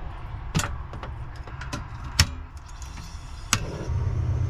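Three short, sharp clicks, the loudest in the middle, from handling a portable butane camp stove and a pan lid, over a low rumble that grows louder near the end.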